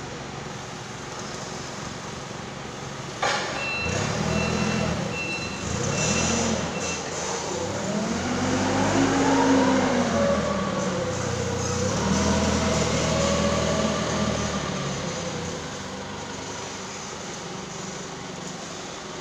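Forklift engine running and revving, its pitch rising and falling for several seconds, then easing back. A clunk about three seconds in is followed by a few seconds of repeated high reversing beeps.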